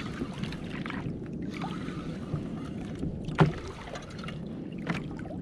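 Water noise around a fishing kayak, with a few sharp knocks on the boat; the loudest knock comes about three and a half seconds in.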